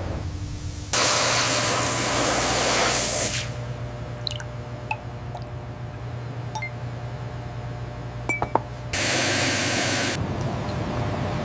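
Two sudden bursts of hissing spray. The first, about two seconds long, starts a second in; the second, shorter, comes near the end. A steady low hum runs underneath, with a few faint clinks between the bursts.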